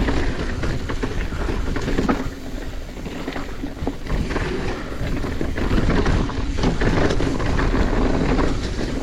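Mountain bike rolling and rattling over a dirt trail, with wind rushing over the microphone.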